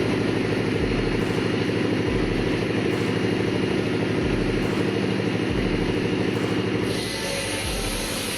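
Engine running steadily at an even speed, with a low pulse about once a second. The sound shifts slightly and drops a little in level about seven seconds in.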